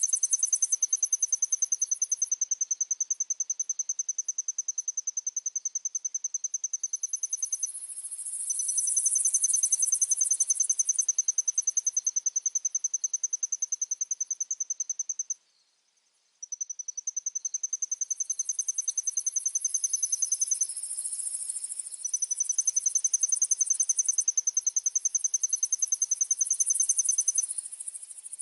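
Crickets chirping in a fast, even rhythm, layered with a higher, hissing insect buzz that swells and fades; everything cuts out for about a second midway, then resumes.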